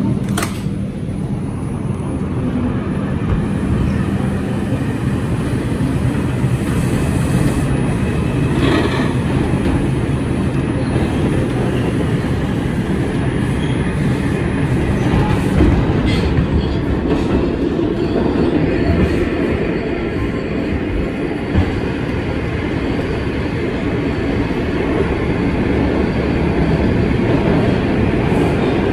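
Inside a 2001 Bombardier R142 subway car as it runs along the track, with a steady, loud rumble of wheels on rail and a few sharp clicks over the rail joints.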